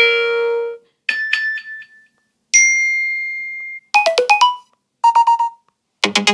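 A run of short Apple iPhone 13 Pro alert tones played one after another: about six brief chimes and jingles, each different, with short silences between them.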